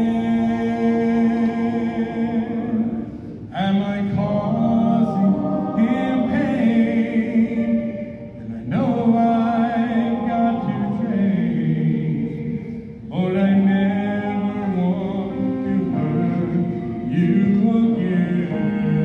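Vocal music: sung phrases of long held notes, breaking every four to five seconds.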